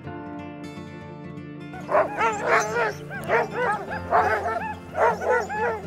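Soft music with steady notes, then from about two seconds in many sled dogs barking and yipping at once, in rapid overlapping calls that keep on over the music.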